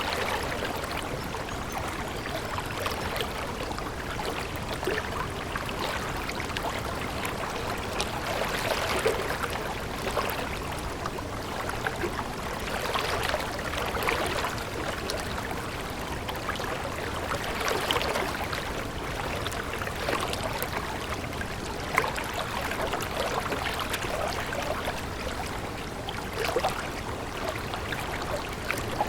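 Water flowing and splashing steadily, like a stream over stones, swelling a little every few seconds, with small drip-like clicks.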